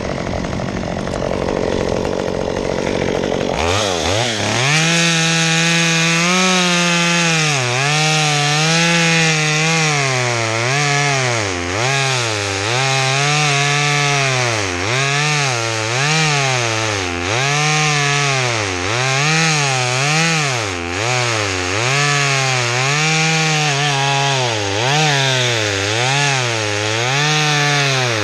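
A Stihl MS 193T two-stroke top-handle chainsaw cutting a limb. After a few seconds of rushing noise, the saw comes up to full speed about three and a half seconds in. Its pitch then keeps dropping and climbing back, about once a second, as the chain bites into the wood and frees again.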